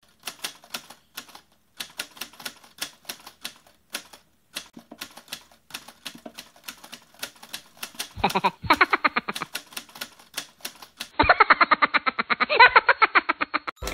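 Typewriter typing sound effect: a quick run of key clacks, several a second, as the text is typed out. Twice in the second half, a buzzier, pitched sound effect plays over the clacks, the second one longer and near the end.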